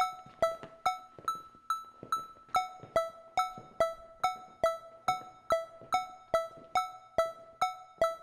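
Background music: a single keyboard note repeated steadily, about three times a second, each strike fading quickly.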